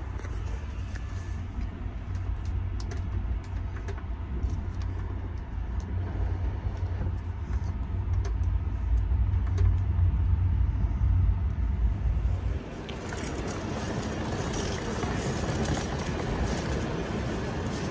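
Steady low rumble inside a railway carriage, with faint light rattles and clicks. About two-thirds of the way through it cuts off abruptly into the even hiss and faint clatter of a large station hall.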